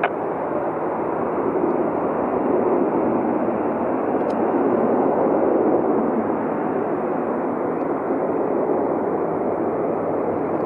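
Twin-engine jet airliner on final approach, its engines and airframe a steady rushing roar that grows slowly louder as it comes closer.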